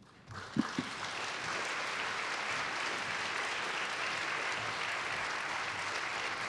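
Audience applauding: the clapping starts about half a second in and then holds steady, with a couple of low thumps near the start.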